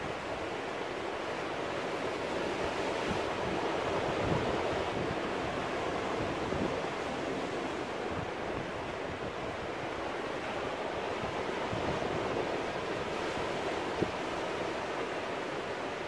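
Sea surf breaking and washing over rocks: a steady rush of foaming water that swells slightly a few seconds in.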